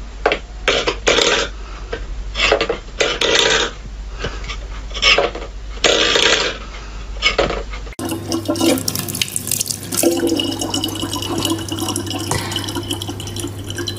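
A metal bowl clattering on a wooden floor in a string of short knocks and scrapes. About eight seconds in, a thin stream of water starts running steadily from a tap into a sink.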